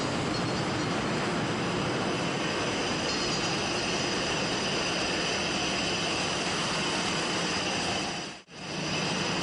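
Steady vehicle running noise, an even rushing drone with faint high whines in it, which drops out briefly near the end.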